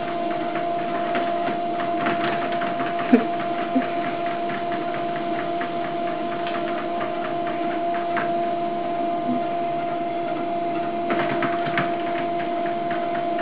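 Electric treadmill running: a steady motor hum with a light, regular ticking from the moving belt, and one sharper click about three seconds in.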